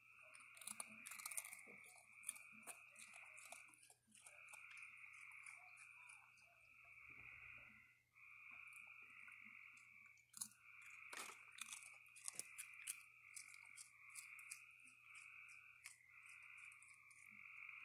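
Raccoon crunching and chewing dry snacks such as cookies and cereal, heard as faint, irregular crisp clicks, thickest about a second in and again near the middle. Behind it a trilling frog chorus runs in stretches of a couple of seconds with short breaks.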